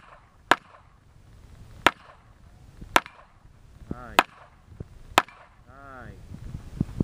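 Handgun shots fired one at a time, five loud cracks about a second apart, with a few fainter cracks in between.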